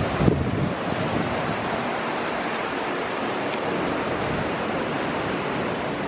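Steady rushing noise of wind and water, with a couple of low wind buffets on the microphone in the first second.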